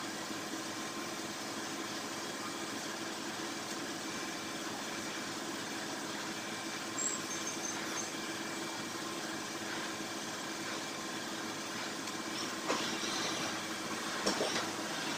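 Gas brazing torch flame hissing steadily on a radiator tank, over a steady mechanical hum. A few short crackles in the last few seconds.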